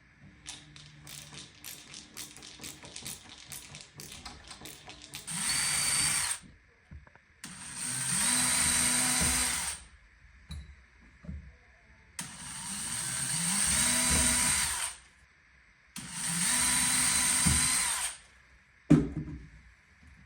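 Rapid clicking of a ratcheting hand screwdriver turning screws, then a cordless drill-driver running in four bursts of one to three seconds each, each with a steady high whine. A single sharp knock comes near the end.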